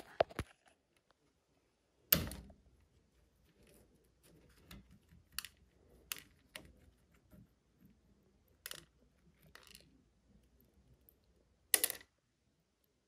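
Scattered metallic clicks and clinks as a rusty U-joint cross and its bearing cap are handled against the driveshaft yoke. Two sharper knocks stand out, about two seconds in and near the end.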